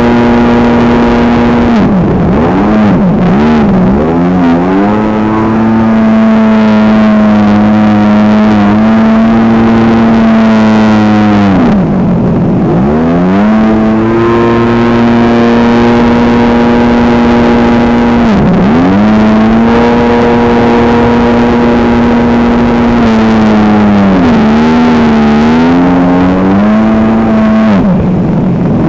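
Jet ski engine running at high, steady revs under way, its pitch dipping and climbing back about four times as the throttle is eased off and reopened.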